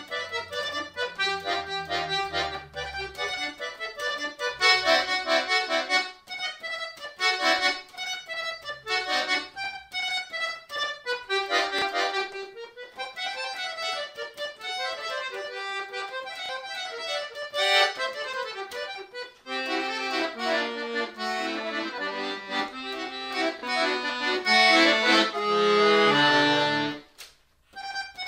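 Chromatic button accordion played solo: fast runs of notes, with a busy lower line joining about two-thirds of the way through and a brief pause near the end before the playing resumes.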